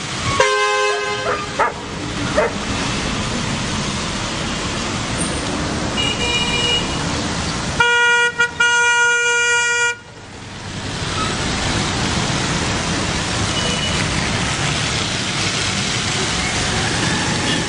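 Street traffic on a wet road: steady vehicle and tyre noise with car horns honking, a run of short toots about half a second in and a long horn blast, briefly broken, from about eight to ten seconds in.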